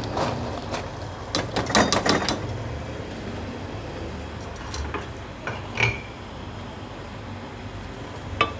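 Parboiled basmati rice tipped from a plastic colander into a steel pot of sugar syrup: a rush of grains with several knocks and clicks of the colander against the pot in the first two seconds or so, then a few scattered clicks over a faint steady hum.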